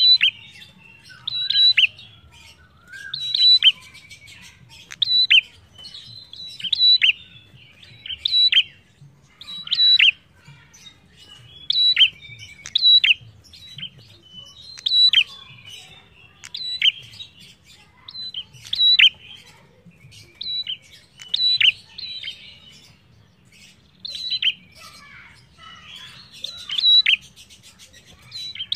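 Prenjak songbird calling: loud, sharp chirps repeated about every one and a half to two seconds, each a high note that drops in pitch.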